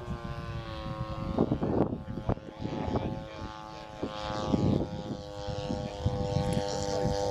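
A radio-controlled model airplane's engine running steadily with its propeller, at a constant pitch and growing a little louder toward the end.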